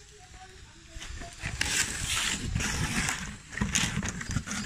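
White smoke firework cylinder (Shogun 10 Minute White Smoke) hissing as it burns and pours out smoke. The hiss is faint for the first second, then surges and fades unevenly, over a low rumble of wind on the microphone.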